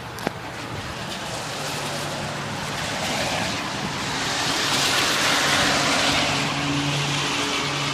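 Gusty storm wind rushing, swelling over several seconds and easing slightly near the end, with a sharp click just after the start and low steady tones joining about a second and a half in.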